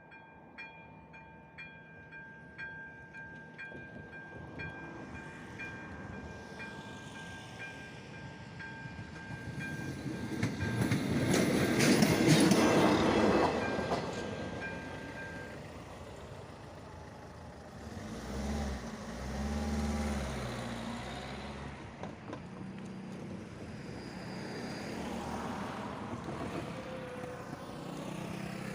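Electronic level-crossing bell (AŽD ZV-02) ringing in even strokes, about three every two seconds, as a rail work vehicle approaches and passes over the crossing, loudest a little before halfway. The bell stops soon after the pass, and a lower engine sound follows a few seconds later.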